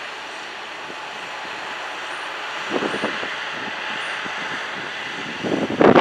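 Corn-harvest machinery running steadily, with louder rough bursts about three seconds in and again near the end.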